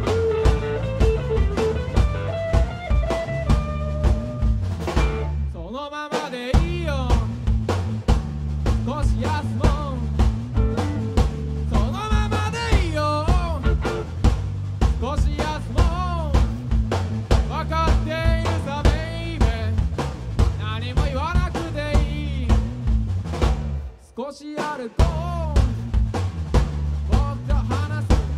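Live rock band playing: drum kit, bass and electric guitar, with a male voice singing over them. The band drops out briefly twice, about six seconds in and again near the end.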